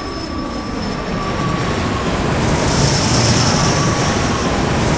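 Steady rushing noise of a Boeing 787 jet airliner in flight, its engine and airflow sound growing louder and brighter about two and a half seconds in.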